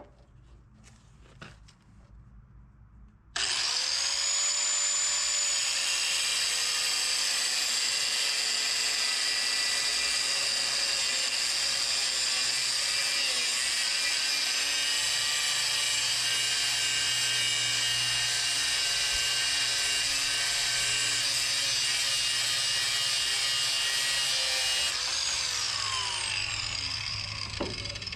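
Angle grinder cutting off a square-headed bolt: it starts about three seconds in with a short rising whine, runs at a steady high speed for about twenty seconds, then winds down with a falling whine near the end.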